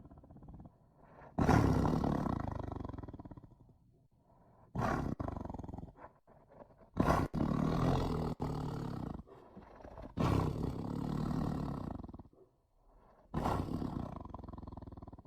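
Tiger growling and roaring: five loud, deep calls, each starting suddenly and tailing off over a second or two, with short pauses between them.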